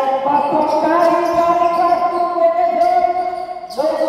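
Basketball game sounds on a concrete court, with a ball bouncing faintly. Over them runs a steady held pitched tone with several notes stacked together, shifting slightly about a second in and gliding up just before the end.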